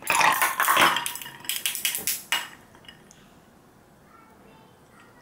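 Ice cubes tipped from a bag into a glass tumbler, clattering and clinking against the glass for about two and a half seconds.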